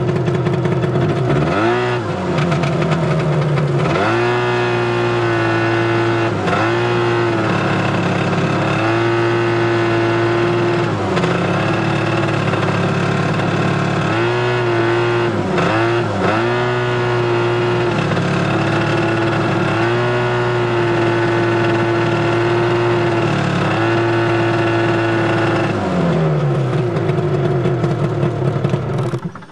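A 1973 Ski-Doo Elan 250 twin snowmobile's two-stroke engine runs under way. The throttle is eased off and opened again several times, so the engine note drops and climbs, and it falls away near the end.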